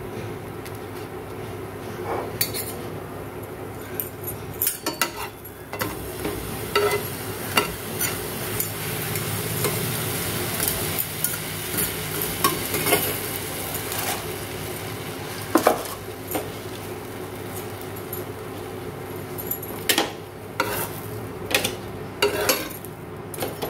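Bread slices toasting in butter on a nonstick tawa, sizzling steadily, with frequent short scrapes and taps of a spatula against the pan as the slices are spread and turned.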